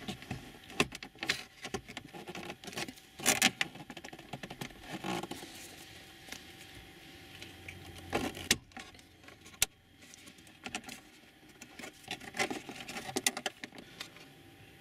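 Plastic clicks, knocks and scraping as a plastic trim tool pries the air-vent surround out of a Honda CR-V dashboard, its clips snapping loose. The clicks are irregular, with the loudest a few seconds in and a pair around the middle.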